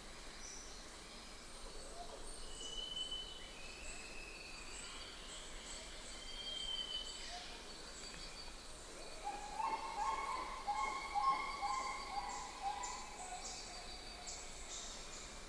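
Wild birds calling and singing over a steady background hiss, with a busier run of trilled song past the middle. A thin high chirring of insects runs underneath.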